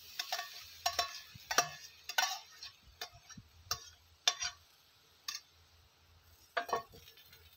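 A spoon knocking and scraping against a bowl as chopped meat is tipped from it into a cooking pot: a quick run of sharp clicks over the first four seconds or so, then a few more spaced out.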